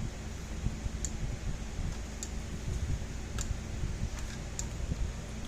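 Gallagher Wrangler electric fence charger pulsing, a sharp tick about every 1.2 seconds over a low steady hum. The repaired unit is firing its output pulse normally.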